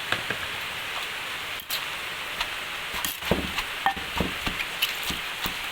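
Pestle pounding and tossing green papaya salad in a mortar: a few light clicks, then from about three seconds in repeated knocks with low thuds, about three a second, over a steady hiss.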